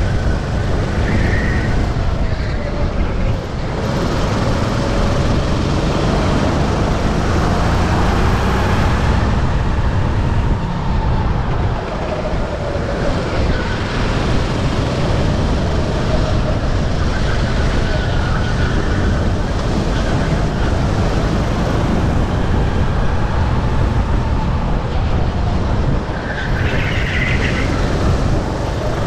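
Sodi RT8 rental kart's engine at race load, its pitch climbing and falling again and again as the kart accelerates and lifts through corners, over a heavy rushing noise.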